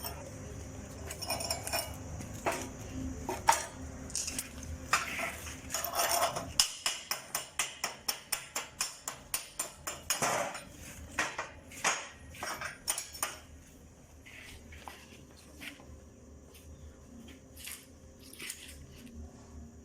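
Steel struck repeatedly with a small hand hammer, sharp ringing taps that speed up to about three a second and thin out near the end, over a low steady hum that stops about a third of the way in. Typical of a chipping hammer knocking slag off a fresh weld.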